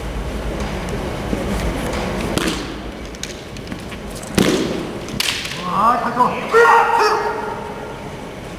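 Kendo exchange: a loud sharp hit, a foot stamp and bamboo shinai strike on a wooden floor, about four and a half seconds in, a second sharp crack a moment later, then the fencers' kiai shouts, rising and falling, for about a second and a half.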